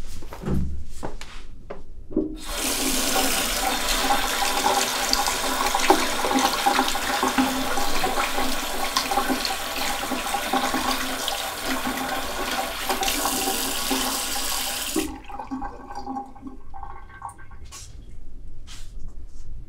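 Water from a tap running hard into a washbasin, turned on about two seconds in and cut off after about thirteen seconds. A few light splashes and clicks follow.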